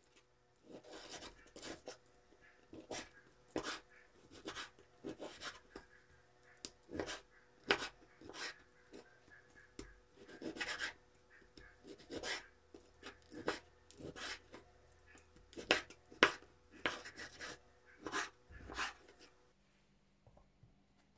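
Food-preparation handling strokes: a string of short, irregular scraping and rubbing strokes, roughly one or two a second, that stop shortly before the end.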